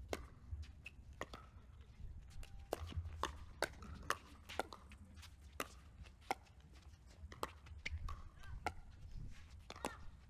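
Pickleball paddles hitting a plastic ball back and forth in a doubles rally: a series of sharp pops at an uneven pace, about one every half second to second.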